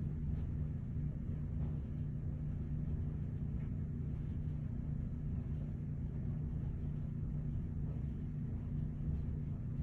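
Steady low mechanical hum with a few fixed low pitches, unchanging throughout.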